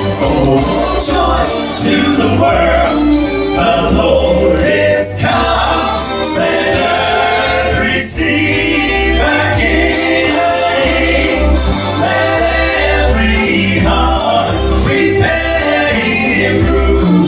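A vocal group singing a gospel song together over instrumental backing with a steady bass line.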